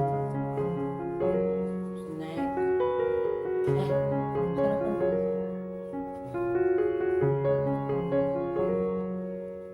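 Background piano music: a slow melody of held notes with chords beneath.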